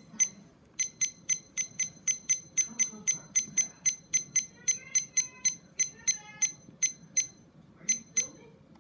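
Taylor digital kitchen timer giving a short, high electronic beep at each press of its minute and hour buttons as the time is stepped up, about four beeps a second, with a brief pause near the end.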